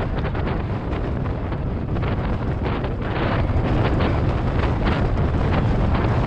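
Wind buffeting the camera microphone over the rattling and knocking of a mountain bike riding down a rough trail.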